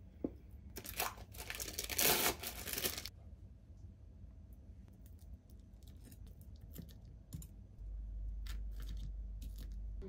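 A plastic wrapper crinkling and tearing open for about two seconds, then scattered light clicks of metal tongs and utensils against a pot.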